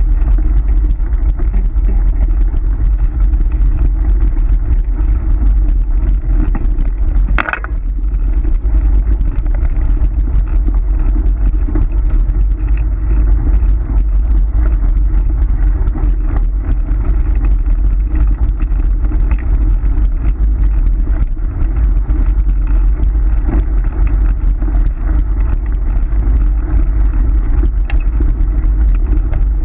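A kick scooter rolls fast over a gravel road while wind rushes across the camera microphone, making a loud, steady, low rumble. There is one short higher sound about seven seconds in.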